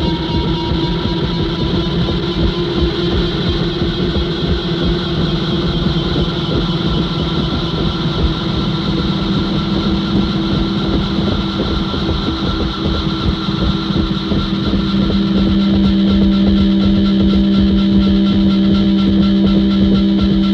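A steady, engine-like droning buzz with a fast pulsing texture and low held tones, growing a little louder about three-quarters of the way through.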